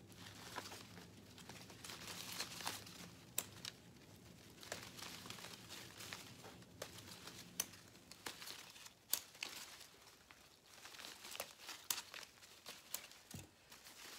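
Rustling and crinkling of artificial leaves being handled and pushed into a moss wreath, with a few short sharp clicks scattered through it.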